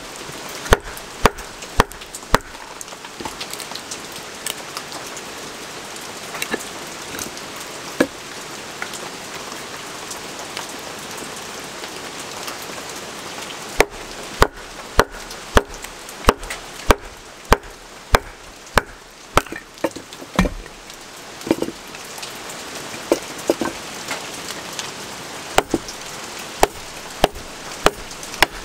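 Batoning: a wooden baton strikes the spine of a Jeo-Tec 29 fixed-blade knife to drive the blade down through an upright log. The sharp wooden knocks come in bursts of about two a second, with a long pause in the middle.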